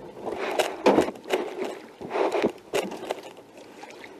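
Irregular water splashes and knocks around a small boat as a hooked muskie is played alongside on a bent rod.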